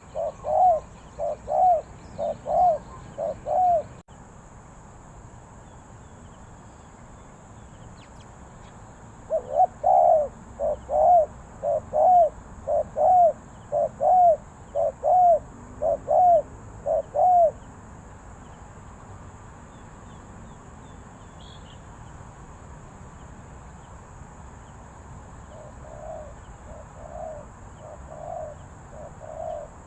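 Spotted dove cooing: runs of repeated low coos about one to two a second. They are loud near the start and again from about ten to seventeen seconds in, with fainter cooing near the end.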